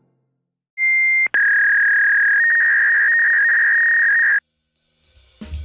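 A loud, steady whistle-like tone: a short higher note, then after a tiny break a slightly lower note held for about three seconds, cutting off suddenly. Drum-led music starts near the end.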